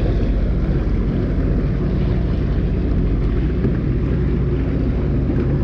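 Jet ski engine running steadily under way.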